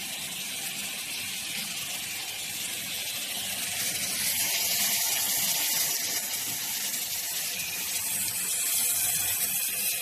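Round bottle washing machine running, its spray jets making a steady rushing hiss of water that grows louder about four seconds in.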